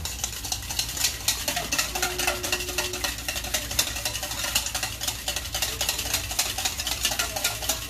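Wire whisk beating orange sauce in a stainless steel bowl: a rapid, steady clatter of the wires against the metal.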